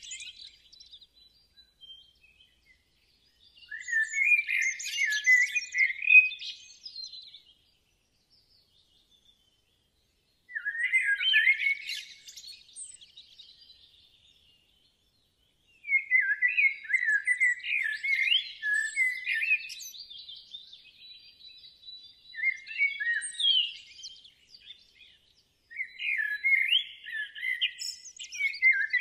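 A songbird singing in bursts of quick chirping phrases, each a few seconds long, with short pauses between them.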